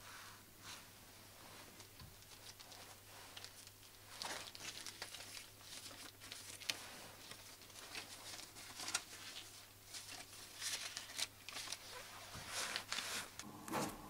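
Paper banknotes rustling and flicking as they are counted by hand, in an irregular run of crinkles and soft clicks. Near the end, a pen scratches a line across paper.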